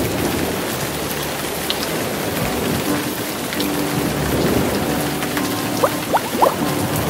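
Steady rain-like hiss with fine crackling, over faint held low tones; three quick rising chirps sound about six seconds in.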